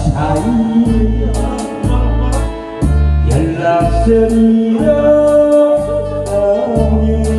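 Backing music for a Korean song: a steady beat with deep bass notes and held melody notes on top.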